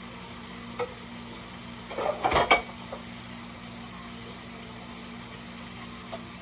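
Ground beef sizzling steadily in a frying pan, with a short burst of clattering kitchen utensils about two seconds in.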